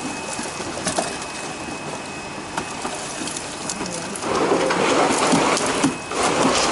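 Water splashing as large fish thrash in the shallow, netted-off corner of a pond, with workers wading among them. The splashing grows much louder about four seconds in, dips briefly near the end, then picks up again.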